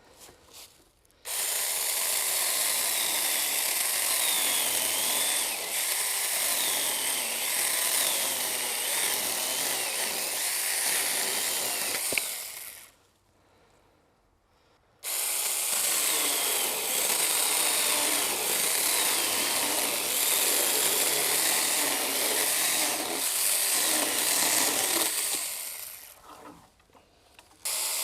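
Saker mini cordless electric chainsaw cutting wood in two long runs, its motor whine wavering up and down in pitch as the chain bites. It stops for a couple of seconds about halfway, and again near the end before starting up once more.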